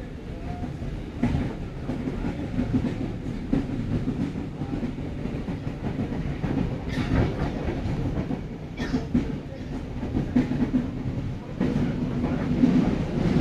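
Moving train heard from inside a passenger car: a steady low rumble with wheels clacking over rail joints every few seconds. The running noise grows louder about eleven seconds in.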